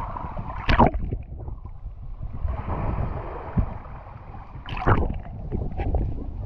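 Small sea waves washing over a camera held half-submerged at the water's surface: low sloshing and gurgling, with a sharper splash about a second in and another about five seconds in.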